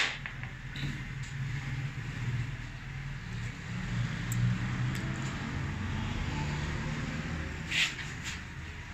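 Steady low rumble of a motor vehicle engine running near the workshop, swelling a little through the middle. A sharp click comes at the start and a few lighter clicks near the end.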